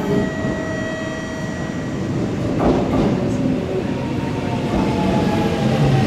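Kintetsu electric train pulling into the station over a running rumble. Its traction motors whine, and the whine falls slowly in pitch through the second half as it brakes. A wheel knocks over a rail joint about halfway through.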